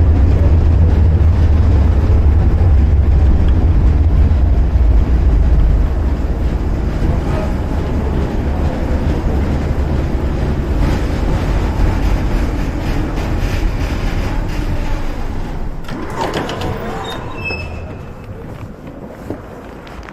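Tram running on its rails: a loud low rumble that steps down about six seconds in and fades steadily over the last few seconds. Brief high squealing tones sound near the end.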